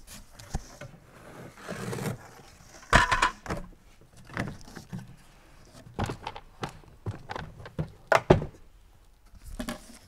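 Unboxing handling noise: cardboard box flaps and packing rustling and scraping, with a series of knocks and thumps as the plastic spreader tank of a DJI Agras T20P is lifted out and set down on the table. The loudest knocks come about three seconds in and again about eight seconds in.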